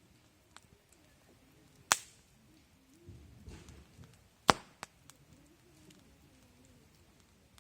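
Wood fire crackling: two sharp pops, about two seconds and four and a half seconds in, among fainter ticks.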